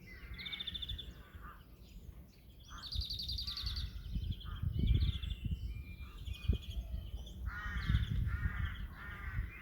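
Garden birds singing in the morning: quick high trills, then a run of harsher repeated calls near the end. Low rumbling bumps come and go underneath, loudest around the middle.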